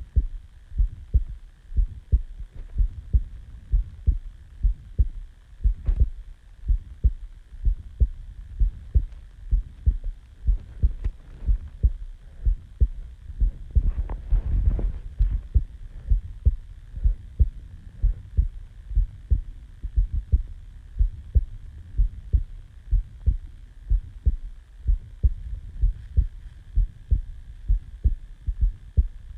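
A person's heartbeat recorded close up: a steady, even rhythm of low lub-dub thumps. A faint steady hum sits underneath, and a brief burst of noise comes about halfway through.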